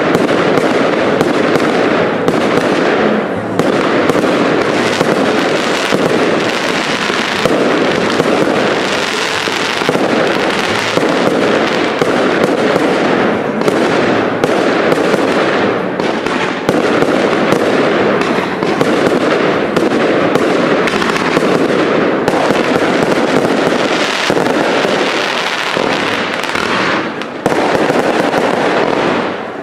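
Cake firework barrage: a dense, unbroken run of launch shots and bursting effects with hardly a gap. It lets up briefly near the end, then comes back louder.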